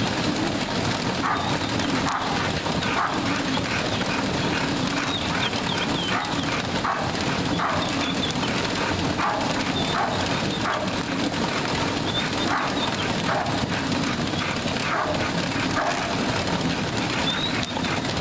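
English bulldog trotting on a dog treadmill, the machine's steady rumble running under the dog's repeated heavy panting breaths.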